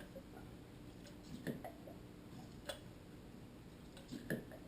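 WP fork cartridge being pumped up and down by hand in fresh fork oil, giving three faint clicks and soft knocks. The pumping bleeds air from the cartridge, which still has little damping resistance.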